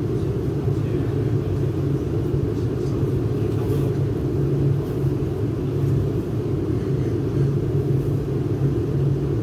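Interior running noise of a Shanghai Metro 09A02-type electric train in a tunnel: a steady low rumble of wheels on rail and traction equipment.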